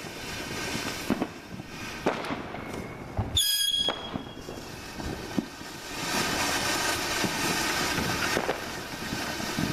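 Ground fountain firework burning with a continuous hissing crackle and scattered sharp pops as coloured stars shoot up from it. A brief high whistle comes about three and a half seconds in, and the hiss grows louder and fuller from about six seconds.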